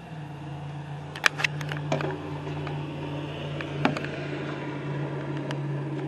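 A steady low machine hum, with a few sharp clicks and knocks of handling noise close to the microphone about a second in, near two seconds and near four seconds.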